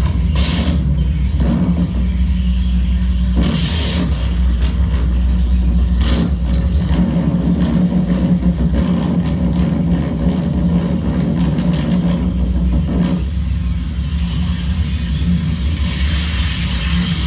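Electronic harsh noise played live through a tabletop rig of effects pedals and a mixer: a loud, dense low drone with noisy surges over the top. The upper noise eases after about 13 seconds, leaving the drone and a hiss.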